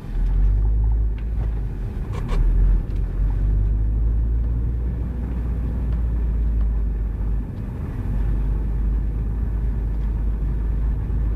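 Car driving, with a steady low engine and road rumble heard from inside the cabin. There is one sharp knock about two seconds in.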